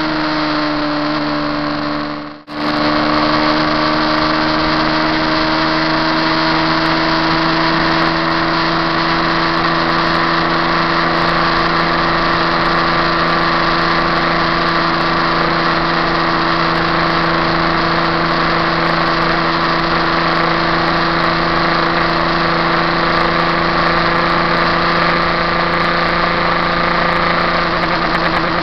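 KTM RC390's single-cylinder engine held at high revs near its top speed, a steady drone that creeps slowly up in pitch as the bike gains speed. The sound cuts out briefly about two and a half seconds in, then returns.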